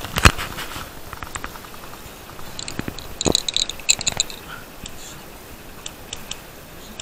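Handling of a leather medical pouch: a sharp thump just after the start, then light clicks and crackling as a wrapped bandage packet is pulled out of it, with a few faint ticks near the end.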